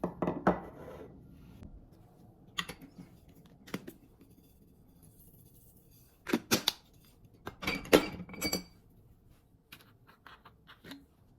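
Kitchen items being handled and set down: scattered sharp clicks, knocks and clatter, with the busiest clusters at the start and about two-thirds of the way in, and a few lighter taps near the end.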